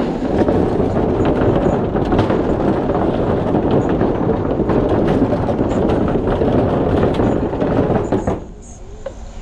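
Bicycle tyres rolling over a wooden plank bridge deck: a loud, steady rumble with rapid clatter from the plank joints. It cuts off abruptly about eight seconds in, as the wheels leave the planks for smooth pavement.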